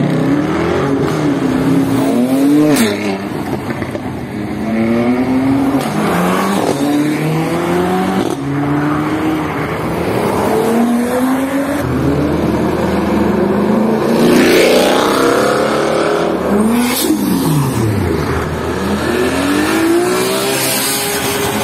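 Performance cars accelerating hard one after another, each engine's pitch climbing and then dropping back with quick gear changes. About seventeen seconds in, one passes close with a steeply falling pitch; sharp cracks come near three and seventeen seconds in.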